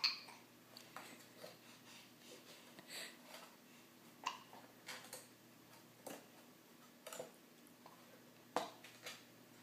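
A baby's mouth making faint, irregular wet clicks and smacks, a dozen or so short pops, with a louder one at the start and another near the end.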